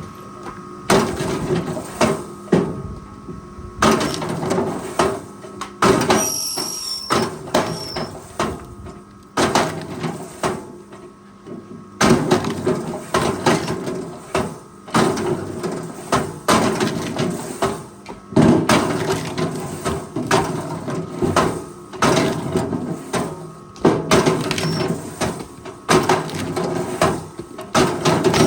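Forestry machine working timber: a string of heavy knocks and scrapes of wood, one every second or two, over the steady hum of its engine and hydraulics.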